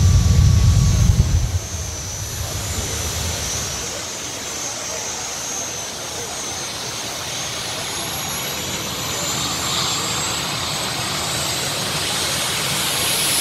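Turbine jet engines on drag cars running. A loud low rumble stops abruptly about a second and a half in, leaving a high-pitched turbine whine that rises near the end.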